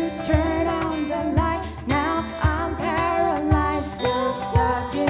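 Vocal ensemble singing wordless harmonies in a pop song over a steady beat, with a low kick about once a second.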